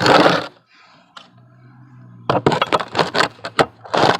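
Clattering and scraping of hand-handled metal parts and tools during grinder work: a loud scrape at the start, then, from a little past halfway, a quick run of knocks and clinks.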